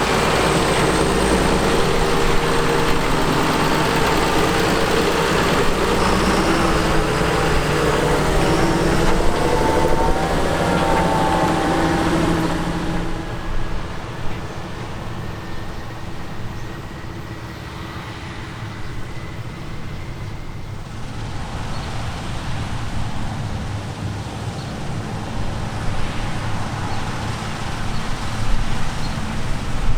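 Diesel engine of heavy harvest machinery running close, with a steady engine hum; about twelve seconds in it drops away abruptly to a quieter, rougher hum, which grows louder again near the end.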